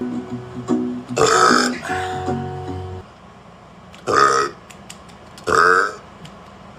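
A man burping loudly three times: about a second in, again near four seconds, and once more near the end. Guitar music plays under the first burp and stops about three seconds in.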